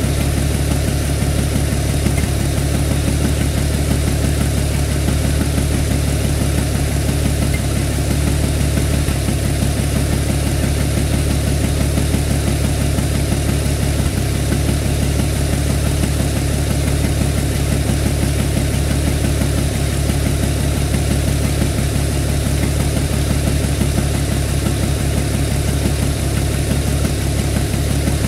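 6.9 litre diesel engine cranked steadily by its starter without firing, the long crank that purges air from the fuel system and injectors before a first start.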